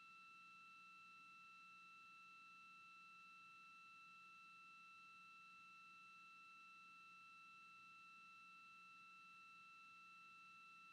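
Near silence: a faint, steady high electronic whine, a single pitch with overtones, over a low hum.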